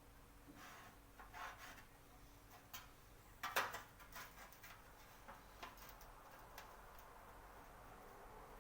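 Faint, scattered clicks and taps of tools and parts being handled, with one louder knock about three and a half seconds in.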